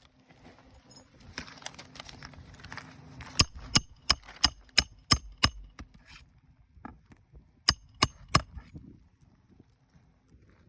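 Hammer driving roofing nails during an asphalt shingle repair: rustling and scraping, then a run of about eight sharp strikes about three a second, and three more a couple of seconds later.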